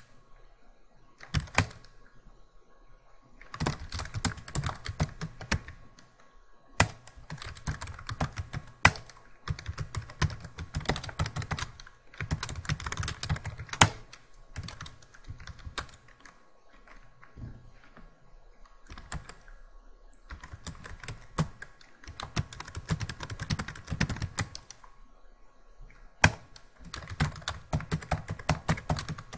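Computer keyboard typing in quick bursts of keystrokes with short pauses between, and a few louder single key strikes.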